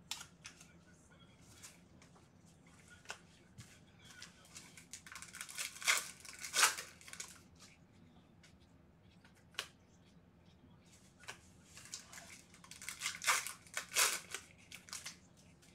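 Trading card pack wrappers being torn open and crinkled by gloved hands, in two bursts of rustling, one about six seconds in and another near the end, with light clicks and taps between.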